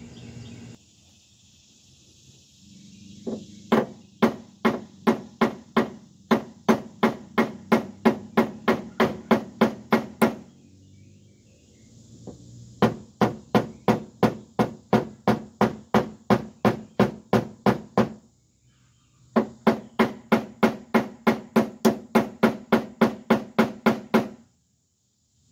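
A small dent-repair hammer tapping on a Buick's steel fender around a dent. The taps come in three runs at an even pace of about three a second, with short pauses between.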